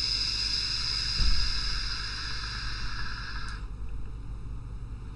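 A long drag on an EHPro Bachelor X single-coil RTA: a steady airy hiss of air drawn through the atomiser's airflow, lasting about four seconds and stopping suddenly. A short low bump comes about a second in.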